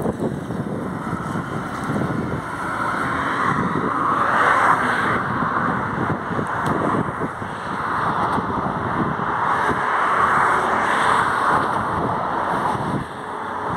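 Wind buffeting the microphone, with road traffic swelling and fading as vehicles pass, twice.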